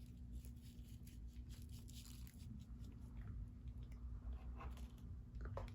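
Faint crackly handling noises from the slime toy and its sprinkles, soft scattered ticks over a steady low hum.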